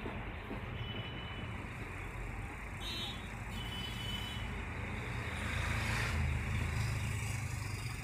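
Steady low background rumble and hiss with no distinct events, swelling a little about six seconds in.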